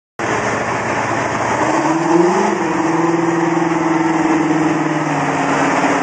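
Big Bud 747's Detroit Diesel 16V-92 two-stroke V16 diesel engine running. Its pitch rises briefly about two seconds in, then holds steady.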